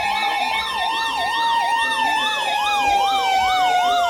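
Weather radio alert alarms sounding for a flash flood warning: a siren-like warbling tone sweeping up and down about twice a second over a steady tone that slowly drops in pitch.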